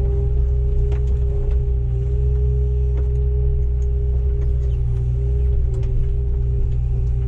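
Komatsu PW160 wheeled excavator's diesel engine running steadily, a heavy low rumble with a steady whine above it and a few light clicks.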